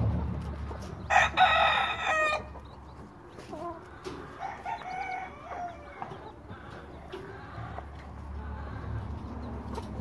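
A chicken crows once, loud and just over a second long, about a second in; softer short clucks and calls follow a few seconds later.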